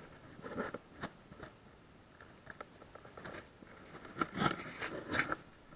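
Footsteps crunching and scuffing in short irregular clusters, one spell about half a second in and a louder one about four seconds in.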